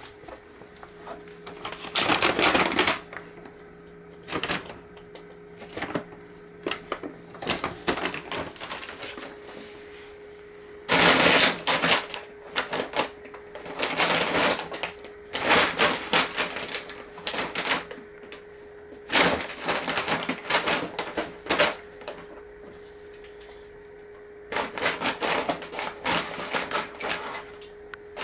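Heavy brown paper leaf bag crackling and rustling in repeated bursts as a cat paws at, climbs onto and burrows into it, with a steady low hum underneath.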